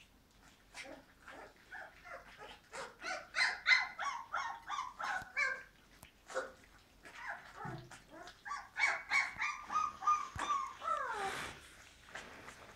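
Puppies whining and squeaking in two runs of quick, short high calls, with a falling whine near the end, as they jostle to eat from steel bowls. Small clicks and slurps of eating come between the calls.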